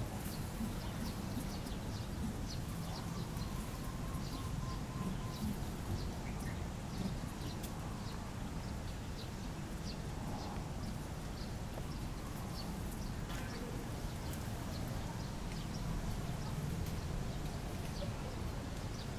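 Steady outdoor ambience with a low rumble, dotted with many scattered short, high-pitched chirps and a brief pitched call about two-thirds of the way through.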